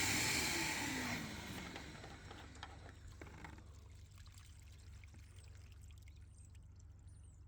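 Parkside wet/dry vacuum's motor switched off and winding down: the rushing noise fades over the first two seconds while its whine falls steadily in pitch. Faint soft clicks and a few faint high chirps follow.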